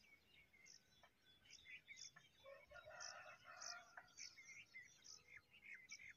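Faint birdsong: many short, high chirps from small birds, with a distant rooster crowing for about a second and a half near the middle.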